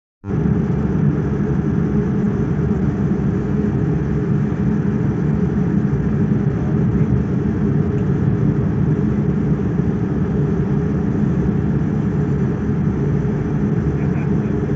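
Steady low rumble in the cabin of a Boeing 787 Dreamliner taxiing, its engines running at low power. The sound cuts out for a split second at the very start.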